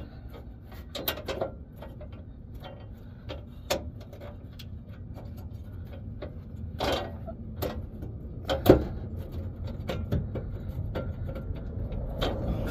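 Hand tools tightening bolts: irregular metallic clicks and knocks, with a louder clank about nine seconds in, over a steady low background rumble.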